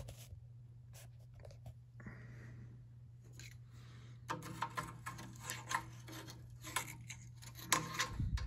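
Faint metal clicks and clinks of tools and parts being handled against a steady low hum, sparse at first and then, from about four seconds in, a busy run of sharp metallic clinks, some ringing briefly.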